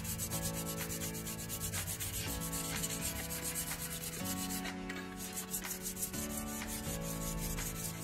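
Sandpaper rubbed quickly back and forth along a painted metal bicycle mudguard, a rapid run of even scraping strokes as the paint is sanded down.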